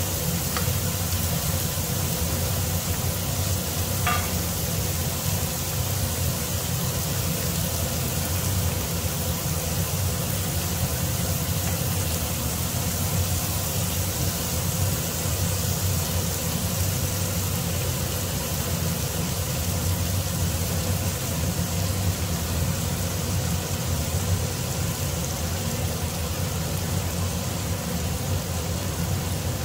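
Marinated beef strips and butter sizzling steadily in a nonstick frying pan, over a steady low hum, with one faint click about four seconds in.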